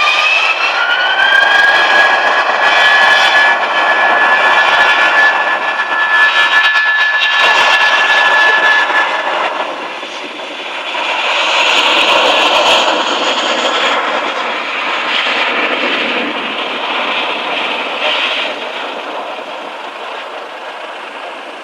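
Airbus A320 jet engines spooling up to takeoff thrust: a whine rises in pitch over the first two seconds, then holds steady over a loud jet roar. The sound dips about ten seconds in, swells again, then gradually fades.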